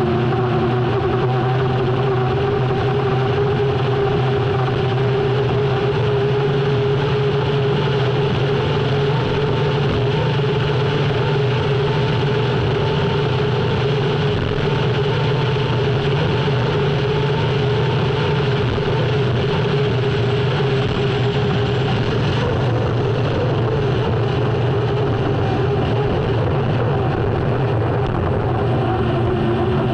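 Unlimited hydroplane's Lycoming T55 gas turbine engine running hard, heard onboard: a steady whine over a deep rumble and rushing noise, holding nearly the same pitch throughout.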